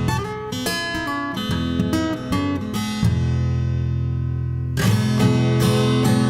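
Background music on acoustic guitar: picked and strummed chords, with one chord left ringing for about two seconds midway.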